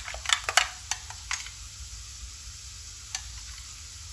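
Metal spoon stirring a thick mayonnaise-and-ketchup dip in a ceramic bowl, clinking against the bowl several times in the first second and a half and once more about three seconds in.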